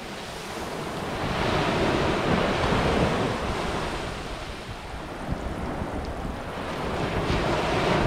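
Sea waves breaking and washing up a sandy beach, in two swells of surf: the first builds to a peak about two to three seconds in and fades, the second rises near the end. A low rumble of wind on the microphone runs underneath.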